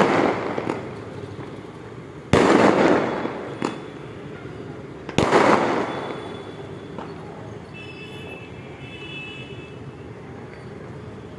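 Fireworks bursting in the sky: three loud bangs, one at the very start and others about two and a half and five seconds in, each trailing off over a second or so, with a few smaller pops between them. A steady hum of city noise runs underneath.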